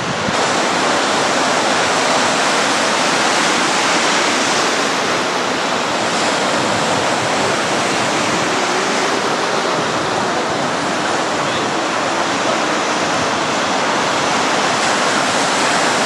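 Storm surf: waves breaking and washing in without a break, a loud, steady rush of water.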